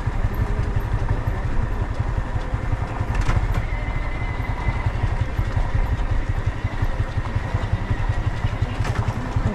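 A Yamaha MT-15's 155 cc single-cylinder engine running steadily through its stock exhaust, heard onboard, with a fast, even low pulse.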